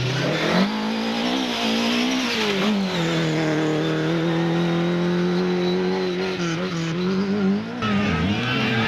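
Racing car engine under load, its pitch rising and falling over the first few seconds and then held steady for several seconds, with an abrupt change in the sound near the end.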